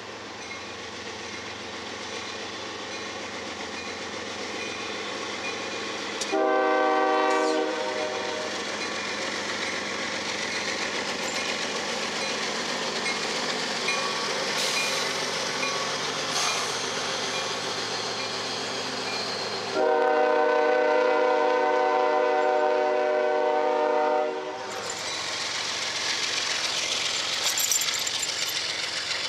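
Union Pacific diesel locomotives passing close by under power, engines running and wheels rumbling on the rails. The air horn sounds twice: a short blast about six seconds in and a long blast of about four seconds around twenty seconds in.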